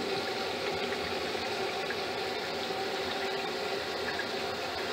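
Tap water running and draining steadily down through a newly installed garbage disposal and its drain pipe, heard from the cabinet under the sink.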